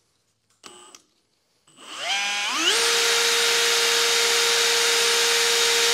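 A brief metallic clink, then a power tool's electric motor starting about two seconds in, its whine rising in pitch for under a second before it runs steadily at a high pitch.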